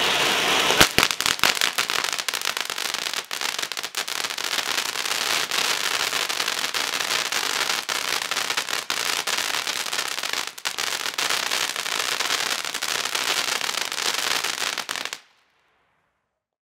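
Aircraft Carrier ground fountain firework spraying sparks: a steady hiss filled with dense crackling and popping, with sharp cracks starting about a second in. It cuts off abruptly about fifteen seconds in.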